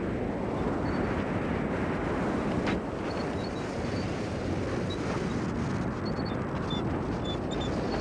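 Wind buffeting the microphone over a rough sea, a steady rushing noise, with one sharp click about three seconds in.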